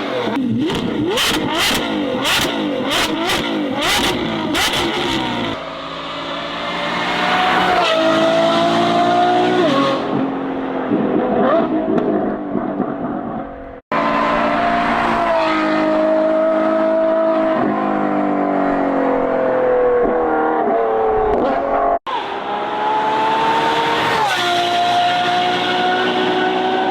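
Lamborghini Revuelto V12 through an aftermarket exhaust. It opens with a run of sharp cracks about twice a second, then accelerates hard, the engine note climbing and stepping down at each upshift. The sound cuts out abruptly twice, about 14 and 22 seconds in.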